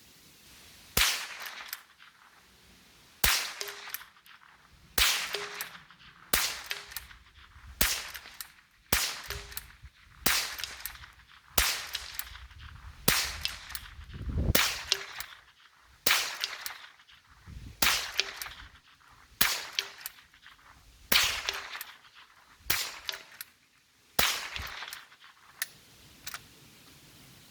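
Henry Golden Boy .22 Long Rifle lever-action rifle fired about fifteen times in steady succession, roughly one shot every second and a half. Each crack trails off quickly, with fainter clicks between the shots as the lever is worked.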